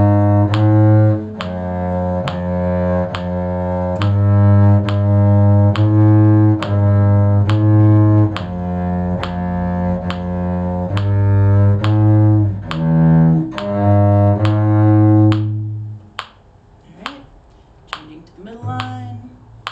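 A cello plays a slow bass line of low, sustained bowed notes, with a steady ticking underneath from a metronome. The bowing stops about 16 seconds in and the ticking carries on alone.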